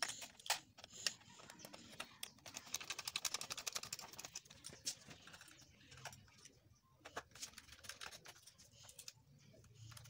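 Light clicks and ticks of a screwdriver and small parts on a TV's sheet-metal back chassis, with a quick run of rapid ticking a few seconds in.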